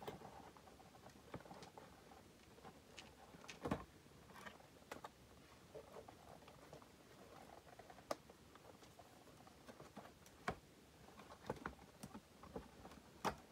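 Cardboard window box being handled and its flaps worked open: faint, scattered taps, clicks and rustles of the packaging, about a dozen in all, at an irregular pace.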